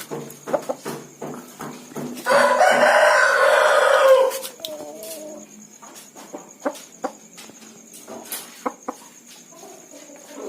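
Rooster crowing once about two seconds in, one loud call lasting about two seconds, among short clucks and sharp clicking noises.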